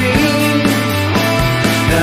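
Indie rock band playing an instrumental passage with no singing. The deep bass drops away for most of it and comes back in near the end.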